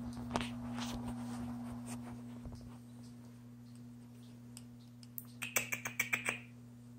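A quick run of about eight small, sharp clicks a little after five seconds in, over a steady low hum.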